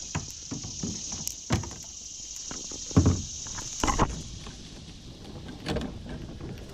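Irregular knocks and thumps on a plastic kayak while a big largemouth bass is being landed, the loudest two about three and four seconds in, over a steady high-pitched hiss.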